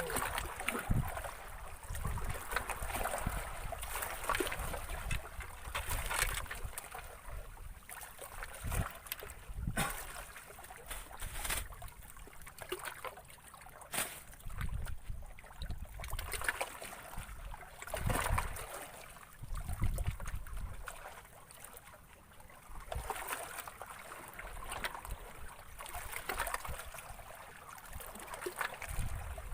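Water lapping and trickling, swelling and fading unevenly, with a few sharp knocks.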